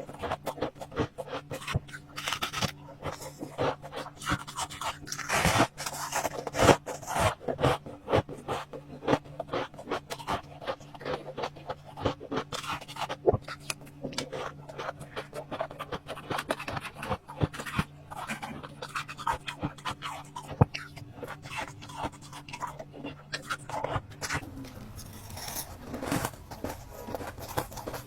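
Ice being bitten and crunched between teeth: a dense run of crisp cracks and crunches. A steady low hum underneath stops near the end.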